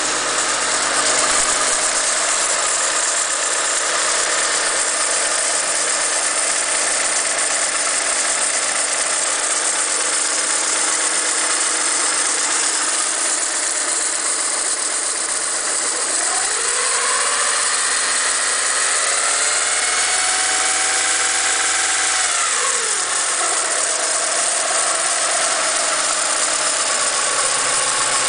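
Honda Civic del Sol four-cylinder engine idling with a repeating "sip-sip-sip" squeak, loudest at the timing cover, just after a new timing belt, water pump and tensioner were fitted. Partway through, the pitch rises, holds for about six seconds, then drops back.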